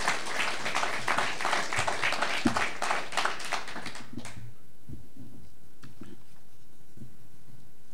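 Audience applauding, the clapping stopping fairly abruptly about four seconds in; then the room goes quiet apart from a few faint small sounds.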